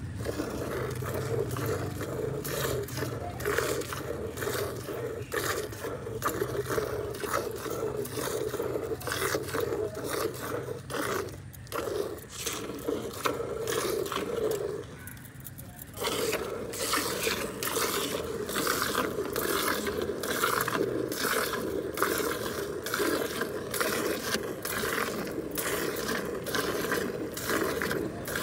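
Hand milking a cow into a partly filled steel bucket: milk squirting from the teats in quick, regular spurts, about two a second. The spurts pause briefly a little past halfway, then carry on.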